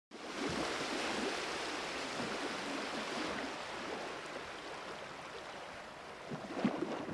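Faint, even hiss that slowly fades away, with a few light clicks near the end.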